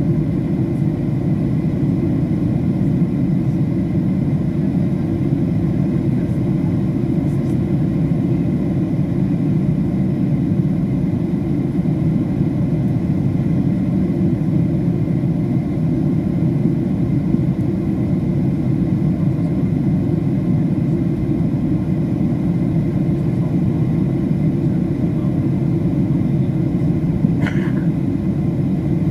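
Steady drone of a Boeing 737 airliner's engines and airflow, heard inside the passenger cabin during descent. About a second and a half before the end comes one brief, higher-pitched sound.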